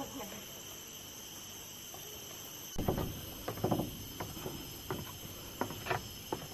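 Steady, high-pitched chorus of tropical forest insects, several unbroken tones layered on one another. From about three seconds in, a few short, louder sounds break in over it.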